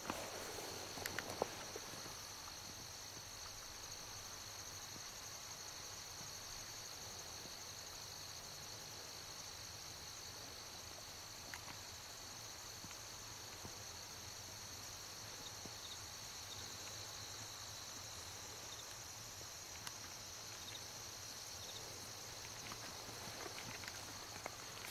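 Steady, high-pitched insect chorus holding two close pitches, with a few soft footsteps on a dirt track in the first two seconds.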